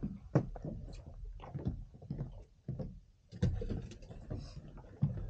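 Irregular knocks, clicks and rustles of handling in a small fishing boat, with a low rumble underneath.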